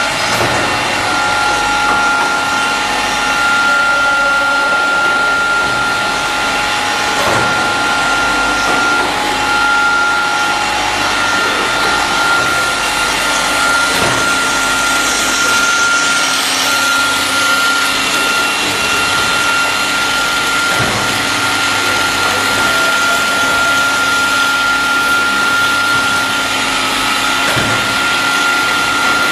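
CNC cutting machine running: a steady high whine over a constant rushing machine noise.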